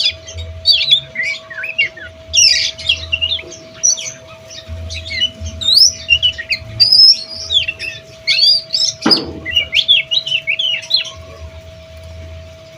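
Oriental magpie-robin (kacer) singing a fast, varied song of whistles, chirps, glides and harsh squawky notes in dense phrases: a bird learning to bring out its song material. A single thump about nine seconds in, and the song thins out near the end.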